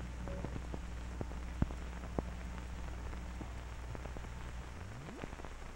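Surface noise of an old film's optical soundtrack: a low steady hum with scattered crackles and pops, and a short rising tone about five seconds in.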